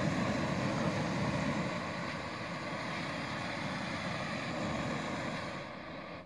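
Screw-top gas canister camping stove burning with a steady hiss, dropping away near the end.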